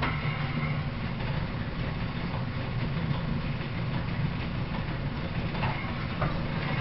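Century-old Gray metal planer running under power, its table carrying the work under the cutting tool and back: a steady low mechanical rumble from the drive, with a couple of sharp clicks near the end.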